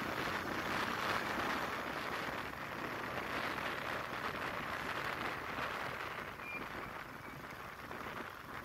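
Steady hiss of tyre and wind noise from a moving car, growing quieter over the last few seconds.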